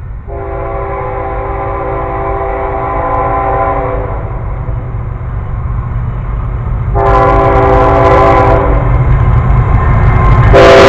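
Approaching CSX diesel freight locomotive sounding its air horn: a long blast of several notes for the first four seconds, a shorter blast about seven seconds in, and a third, louder blast starting near the end. Under the horn the engine's low rumble grows steadily louder as the train draws near.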